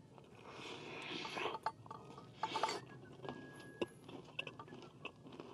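Light clinks and taps of cutlery against dishes, mixed with soft rustling and eating sounds. A couple of the clinks ring briefly.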